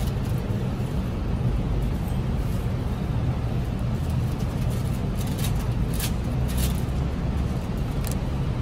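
Steady low rumble of road traffic, with a few short crinkles in the second half as plastic film is peeled off a slab of dough.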